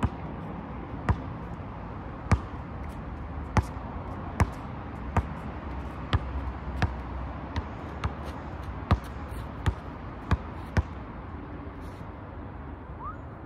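A basketball bouncing on an asphalt court, about fourteen sharp bounces at an uneven pace of roughly one a second, stopping about eleven seconds in.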